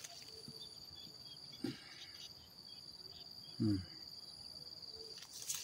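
Insects chirring steadily in the grass, a continuous high-pitched drone, with two brief low murmurs of a man's voice about a second and a half and three and a half seconds in.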